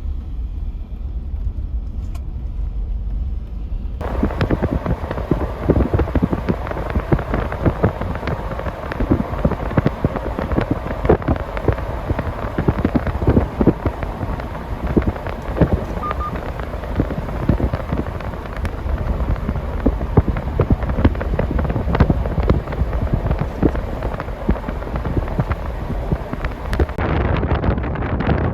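A car driving with a low steady road rumble; about four seconds in, wind starts buffeting the microphone, a loud, irregular crackling rush that eases near the end.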